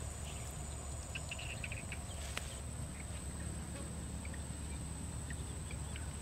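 Outdoor insect drone: one steady high-pitched tone over a low steady rumble, with a few brief faint chirps and a single click about two seconds in.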